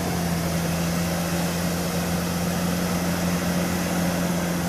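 Off-road vehicle's engine running at steady, constant revs: a single even drone with no change in pitch.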